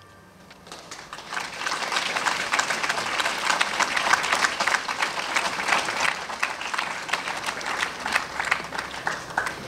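Crowd applauding, building up about a second in and easing off near the end, at the close of a sung performance.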